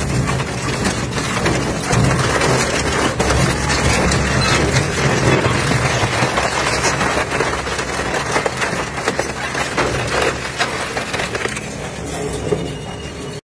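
Twin-shaft shredder's toothed rotors crushing and tearing a metal chair frame: dense, continuous grinding with constant cracking and snapping over a steady low hum from the machine.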